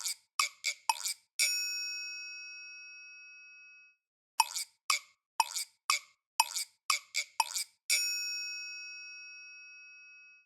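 A run of quick, dry clicks ending in a single bell-like chime that rings on and fades over about two and a half seconds. After a moment of dead silence, the same run of clicks and chime repeats.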